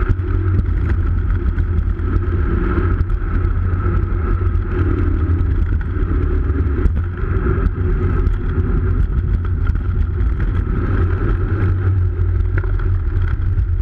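Steady wind buffeting and road rumble picked up by an action camera mounted low on a moving bicycle, a heavy continuous rumble with no engine note.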